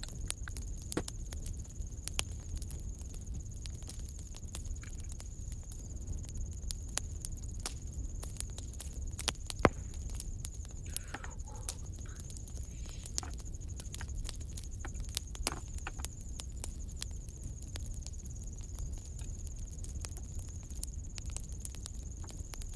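Soldering at a circuit board with a homemade battery-powered soldering iron: small scattered clicks and faint crackle over a steady low hum and a thin high whine, with one sharper click about halfway through.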